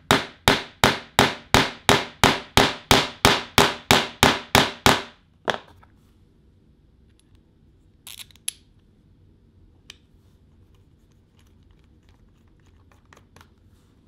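A hammer tapping a four-pronged tee nut into a plywood block: quick, even strikes about three a second, ending with one last tap about five and a half seconds in. A few faint small clicks follow later.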